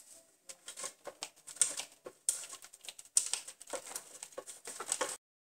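A block of cheese rubbed in repeated rasping strokes down the coarse side of a metal box grater. The strokes stop suddenly near the end.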